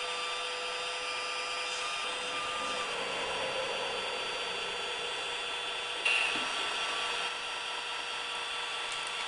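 Small electric motors and plastic gearboxes of a radio-controlled Bruder Caterpillar excavator whining steadily as the arm and bucket move, the pitch shifting about three seconds in. A brief knock about six seconds in.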